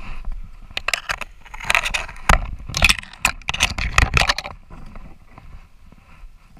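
Footsteps crunching through snow and dry leaves on a slope, with twigs and brush scraping. There is a quick run of loud crunches from about one second in to about four and a half seconds, then lighter crackling steps.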